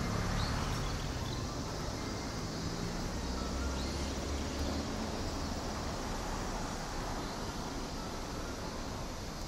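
Outdoor ambience: a steady noise with a low vehicle rumble that swells about three and a half to five seconds in.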